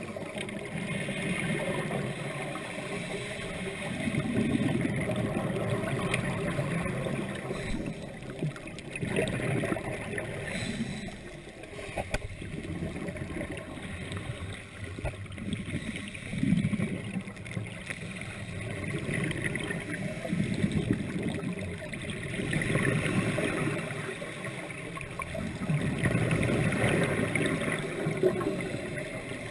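Muffled underwater noise heard through a waterproof camera housing, with scuba regulator exhaust bubbles gurgling in surges every few seconds.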